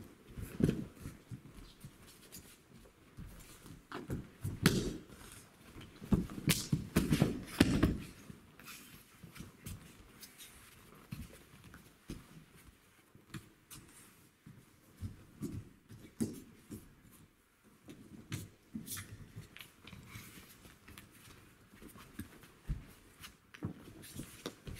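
Aikido partners throwing and falling on training mats: irregular thuds of bodies landing and feet stepping, with the rustle of their uniforms. The heaviest thumps come in a cluster about six to eight seconds in.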